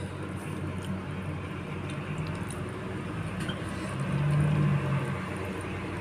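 A steady low hum that swells for about a second around four seconds in, with a few faint clicks over it.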